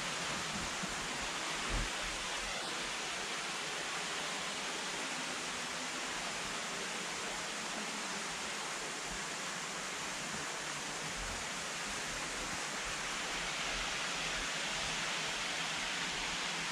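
Steady rushing of a waterfall, an even hiss without breaks, with one brief low thump about two seconds in.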